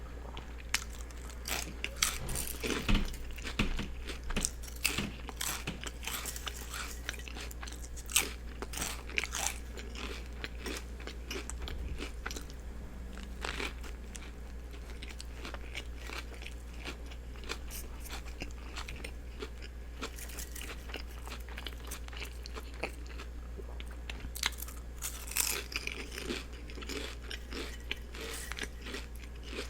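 Close-miked chewing and biting of a turkey and cheese sub with lettuce and onions: irregular crisp crunches and wet mouth sounds, busier at the start and again near the end, over a steady low hum.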